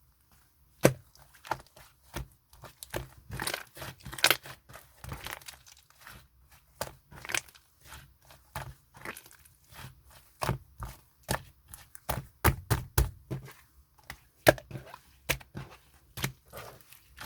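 Slime being squeezed, stretched and poked by hand: irregular sticky pops and clicks, some quick and sharp, with a few short crackling stretches.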